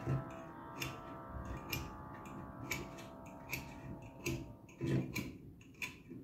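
Light ticks and clicks, about one a second, as a pointed scriber is worked against a capped copper pipe to mark it.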